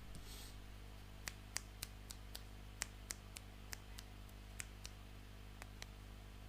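Small hard plastic toy pieces clicking and tapping as they are handled: a brief rustle, then about a dozen light, irregular clicks over some four seconds, above a steady low hum.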